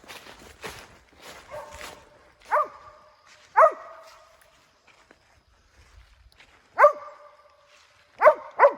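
Mountain cur barking treed: five loud barks spaced a second or more apart, the last two close together, each dropping in pitch at its end. About the first two seconds hold footsteps.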